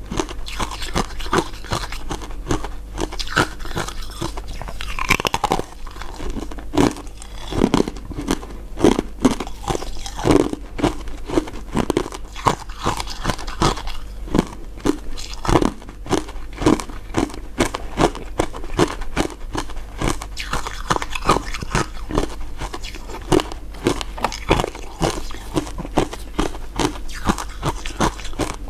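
Close-miked crunching and chewing as a person bites into hard, translucent crystal-ice dessert pieces, with dense, irregular crackles throughout.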